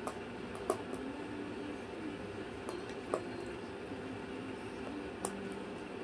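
Moluccan cockatoo chewing toy pieces, its beak giving a few short sharp crunches and clicks over a steady low hum.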